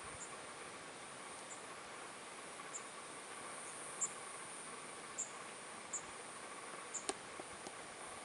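Short, high-pitched insect chirps repeating irregularly, about one a second, over a faint steady hiss of open-air ambience, with a single sharp click about seven seconds in.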